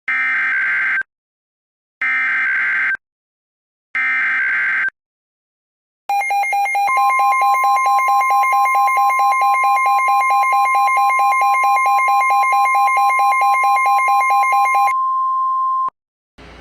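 Emergency Alert System tones for a tsunami warning. First come three one-second bursts of digital header data, two seconds apart. Then the attention signal, a steady two-tone alarm, runs for about nine seconds, and its higher tone carries on briefly after the other stops.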